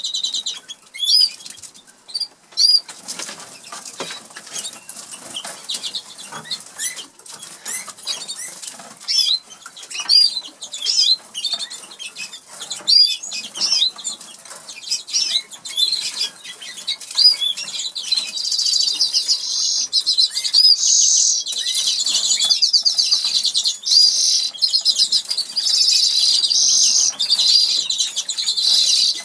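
Norwich canaries giving short chirps among clicks and rustles as they feed at a seed dish; about two-thirds of the way in, a canary breaks into continuous high trilling song.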